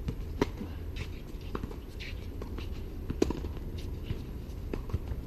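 Tennis racket strings striking the ball during a serve and rally: short sharp pops, the loudest about half a second in and again about three seconds in, with fainter hits and ball knocks between. A steady low hum runs underneath.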